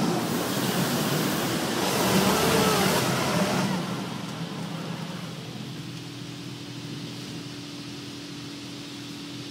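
Spray jets of a touchless automatic car wash hitting the car, heard from inside the cabin: a loud hiss of water and foam on the body and glass that eases off about four seconds in to a quieter spray, over a steady low hum.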